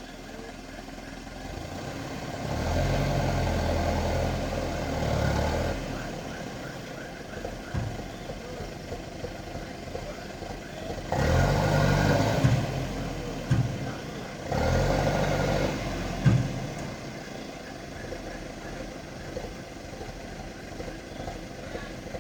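Heavy-equipment engine running at idle and revved up three times, each time for a few seconds, with a few sharp knocks.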